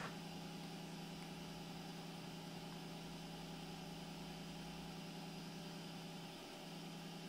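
Extruder stepper motor of a Bowden extruder feeding 1.75 mm filament through the PTFE tube into the hot end during a test extrusion. It makes a steady whine at one pitch, which dips briefly about six and a half seconds in.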